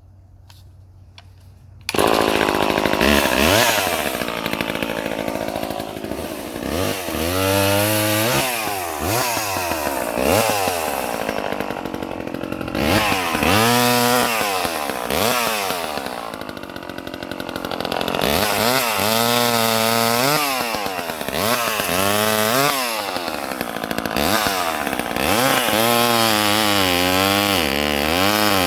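Craftsman 2.1 (Poulan 25DA) two-stroke chainsaw coming in loud about two seconds in, then running with its engine speed rising and falling again and again as it is revved.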